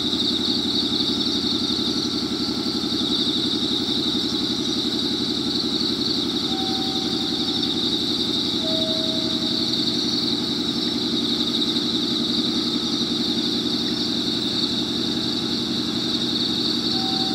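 Air compressor of a JR Kyushu 415 series 100 (steel-bodied) electric train running steadily with a rapid chugging. It is running while the stabled train is being readied to leave the depot siding.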